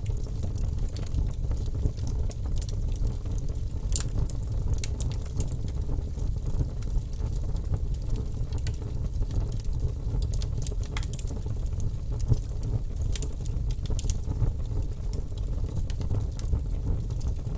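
Fire in a fireplace crackling, with scattered sharp pops and snaps over a steady low rumble.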